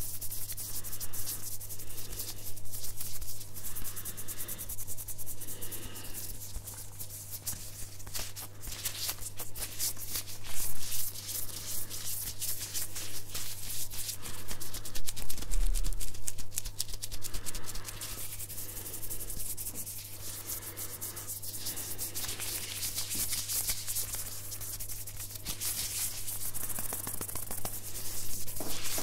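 Hands rubbing and brushing close to a furry-windscreen microphone, one hand in a thin clear plastic glove: dense rustling and crinkling full of fine crackles, swelling and easing as the hands move.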